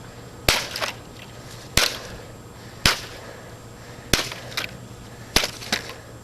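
Five hammer blows on a vacuum cleaner, about one every second and a bit, some followed by a lighter knock.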